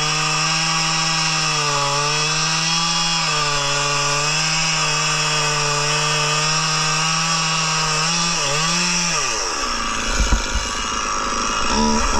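Stihl two-stroke chainsaw cutting through an oak log under load, its engine note steady. About eight seconds in it briefly revs, then drops to a low idle with a few knocks, and near the end revs back up into the cut.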